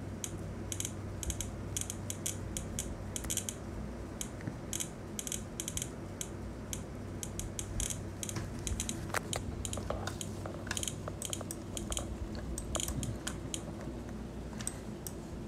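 Rapid, irregular ticking from a live lightning-strike map's alert sound, each tick marking a lightning strike as it is detected.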